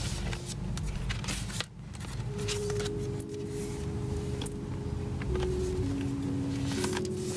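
Pages of a K-pop album's photobook being turned and handled, with repeated short paper rustles and flips, over soft background music with long held notes.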